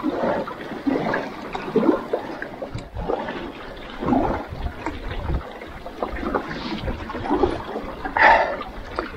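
Double-bladed paddle strokes through river water: a swish and splash as each blade dips and pulls, alternating sides about once a second.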